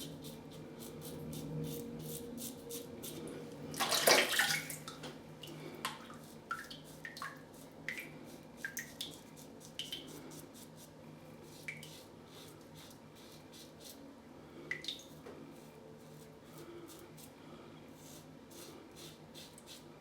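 Water splashing in a sink about four seconds in, most likely the Gillette Tech safety razor being rinsed, then drips and small splashes. Faint clicks run throughout.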